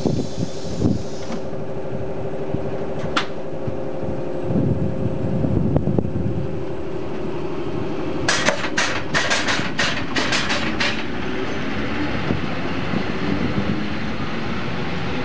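A standing ČD class 451/452 electric multiple unit humming steadily, with a few sharp knocks. About eight seconds in comes a quick run of about eight short hisses, then the unit's running noise as it pulls away near the end.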